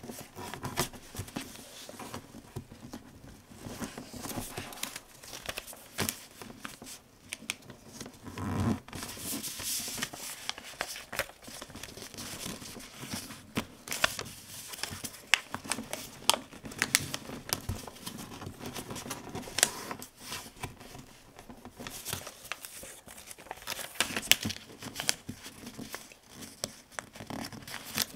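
Paper being folded and creased by hand into a paper airplane: irregular rustling and crinkling, broken by frequent short sharp clicks as folds are pressed flat.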